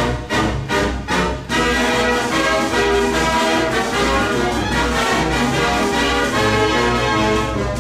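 Background music led by brass, with short punchy stabs for about the first second and a half, then held chords.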